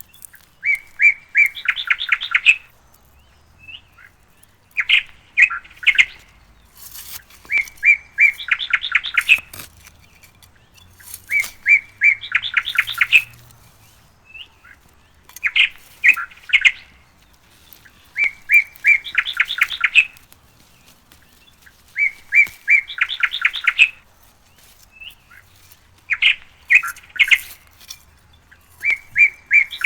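A songbird singing the same short phrase over and over, about every four seconds: each phrase is a quick run of repeated notes that speeds into a brief trill.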